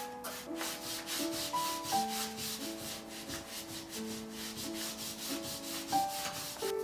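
A rag in a gloved hand rubbing the oily cast-iron frame of a 1916 Chandler & Price letterpress in quick back-and-forth strokes, the grime being wiped off. Light melodic background music plays over it.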